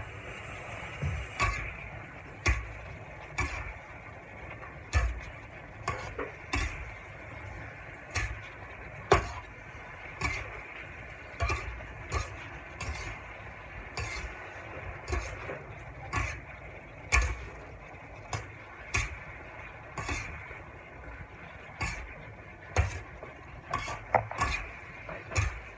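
Metal spatula scraping and clinking against a metal wok while green beans and pork are stir-fried, about one sharp clink a second at an uneven pace, over a steady frying hiss.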